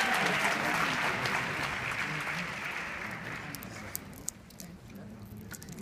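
Audience applauding in a large auditorium. The clapping fades steadily and dies away about four seconds in, leaving a few scattered claps.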